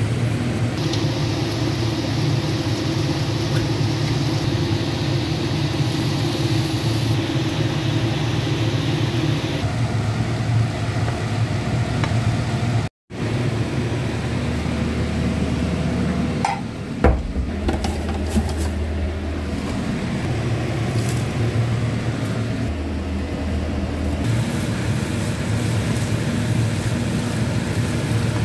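Kitchen cooking noise: a steady low hum, with a few clinks of utensils against a pot and a pan, one sharp clink about halfway through.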